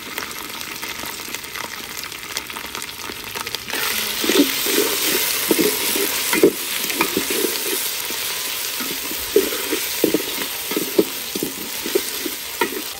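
Ginger-garlic paste and onions sizzling in hot mustard oil in an aluminium pot. About four seconds in, the sizzle grows louder as a metal spatula starts stirring, scraping against the pot in repeated short strokes.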